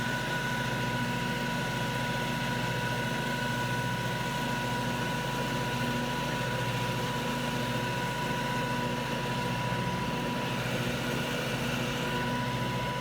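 Riding lawn mower engine running steadily at an even speed, with a constant whine over the low engine note.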